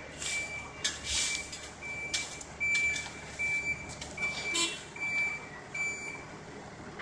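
A construction machine's warning alarm beeping in a steady rhythm, one high tone about every three-quarters of a second, stopping about six seconds in. Shovels scrape through loose soil and gravel between the beeps.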